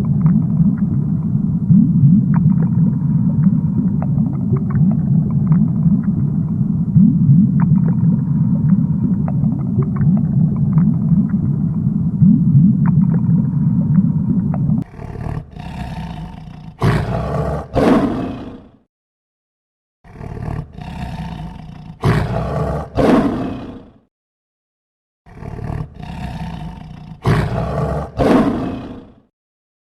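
A large wild animal, most likely a big cat, growling low and continuously for about fifteen seconds. Then come three separate bursts, each with two loud roars, broken by short silences.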